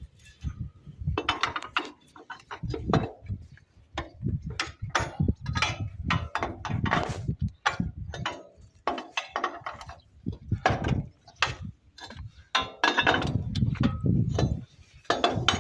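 Irregular metal clanks, knocks and ratcheting clicks of hand tools working on the DT-75 crawler tractor's track and tensioner.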